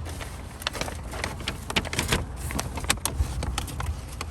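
Car engine idling with a steady low hum, under many scattered short clicks and rustles.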